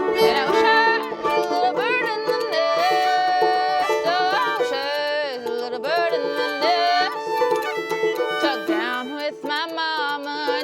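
Instrumental break of an old-time folk song: a fiddle plays the sliding melody over banjo and the clicking of spoons.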